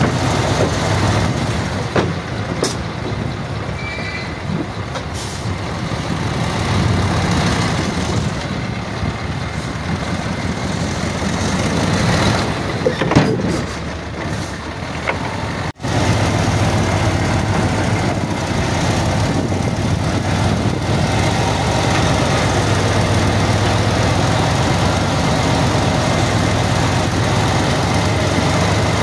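Heavy diesel engine of earthmoving machinery running steadily under load, with a few knocks and clanks in the first half. The sound cuts out briefly about halfway through, then the steady engine drone resumes.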